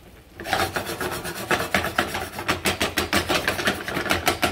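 A silicone spatula scraping and stirring chicken wings through sauce in a stainless steel skillet. A fast run of strokes, several a second, starts about half a second in.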